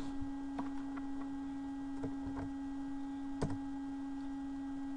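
A few short computer keyboard clicks over a steady low electrical hum, the loudest click about three and a half seconds in.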